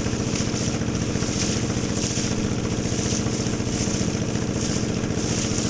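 Engine of a wooden motorboat running steadily under way, with water rushing and splashing against the hull.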